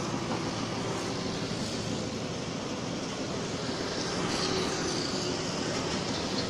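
Steady outdoor background noise: an even hiss with a faint constant low hum, with no clear single event standing out.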